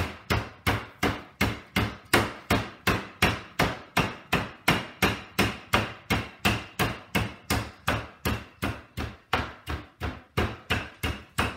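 Wooden rolling pin beating a chicken breast flat between sheets of plastic wrap on a wooden cutting board: a steady run of dull strikes, about three a second.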